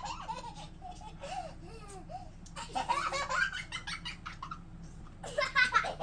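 Children laughing hard in giggles and fits. The laughter swells again about two and a half seconds in and is loudest near the end.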